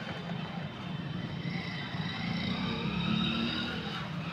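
Road traffic: a motor vehicle's engine running with a steady low hum, and a whining tone that rises and falls in pitch through the middle.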